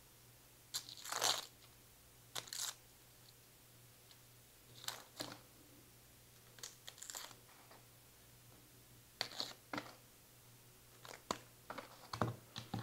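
Dry, papery onion skin crackling and tearing as a red onion is peeled by hand, in short scattered bursts.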